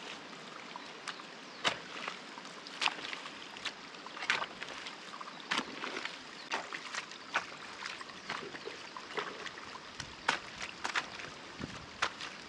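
Rainwater runoff trickling and sloshing, with many sharp clicks and splashes at irregular intervals.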